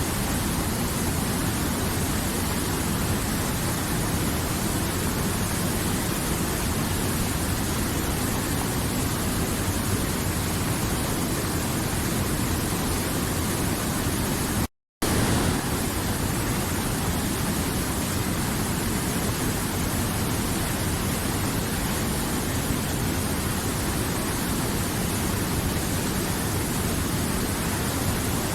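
River water flowing, a steady even rushing that cuts out to silence for a split second about halfway through.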